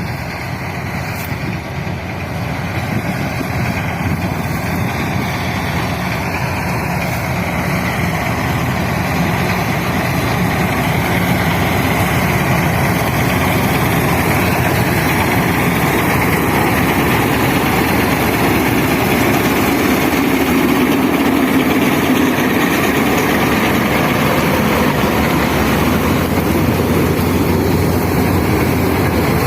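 Combine harvester running steadily at work in a wheat field, a loud engine and machinery noise that grows a little louder over the first ten seconds and then holds level.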